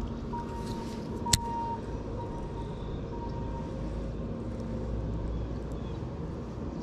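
A motor running steadily, with a thin high whine that breaks on and off over a low drone, and one sharp click about a second and a half in.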